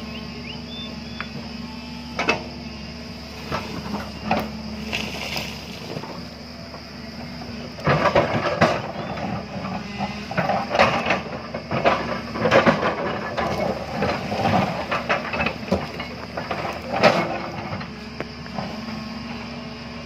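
JCB tracked excavator's diesel engine running steadily while its steel bucket digs into a rocky hillside. A few single knocks come early on, then from about eight seconds in there are around ten seconds of dense, irregular clattering and scraping of rock and soil against the bucket.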